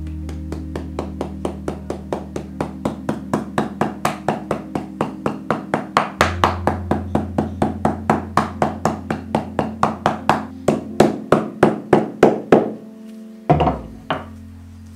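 A metal hammer taps the spine of a sewn paper book block resting on a wooden board, in quick even strikes about four a second. The strikes stop about twelve and a half seconds in, and a couple of louder knocks follow. Calm background music plays underneath.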